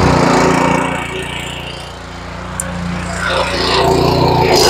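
Small gas engine of a Toro 22-inch Recycler push mower running just after starting on full choke. Its level dips about two seconds in and rises again toward the end.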